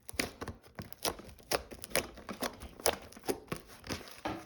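Fluffy slime made of glue and shaving foam being squeezed and kneaded by hand, giving a run of sticky clicks and pops, about two or three a second.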